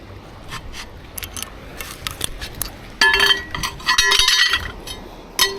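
Scrap metal clinking on a magnet-fishing magnet: small clicks at first, then a run of ringing metallic clinks about three seconds in that lasts nearly two seconds, and one more short clink near the end.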